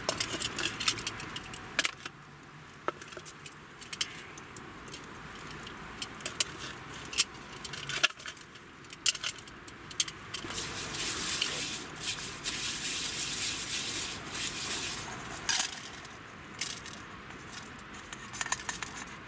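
Wood fire crackling with scattered sharp pops, along with clinks and rattles of cookware being handled. Near the end, dry rice grains rattle as they are poured from a strainer into a metal pot.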